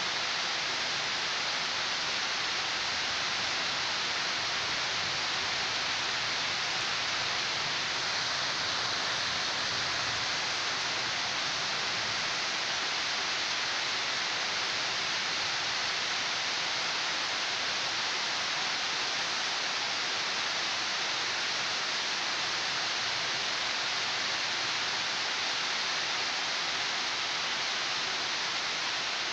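Steady rain falling during a thunderstorm: an even, unbroken hiss with no thunder.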